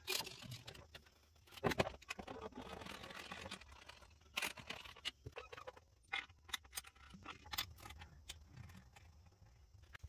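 Scattered clicks, knocks and metallic clinks of hand tools and suspension parts being handled while a coilover is bolted into a car's front strut position.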